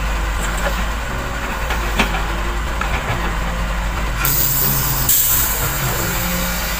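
Heavy construction machinery running steadily with a low diesel drone, with a short knock about two seconds in and a sharp hiss of air lasting about a second, starting a little past the four-second mark.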